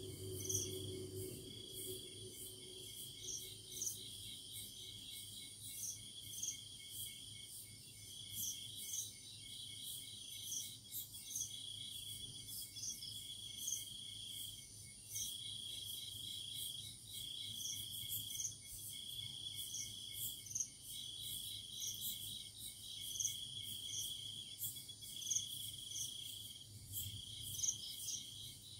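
Night insects calling: one trills steadily in bursts about a second long with short gaps, while another gives higher short chirps about once a second.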